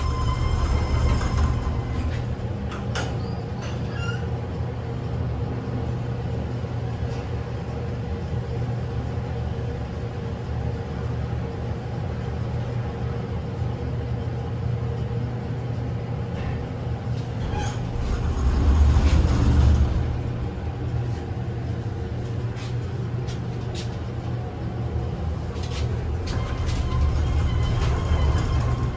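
KONE glass elevator cab running in its hoistway: a steady low hum with scattered clicks and knocks, swelling louder for a couple of seconds about two-thirds of the way through.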